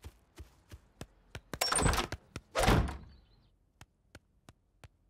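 Cartoon sound effects of quick, light footsteps, about three a second. About halfway through, a door opens and shuts with two loud bumps, and the footsteps carry on more faintly.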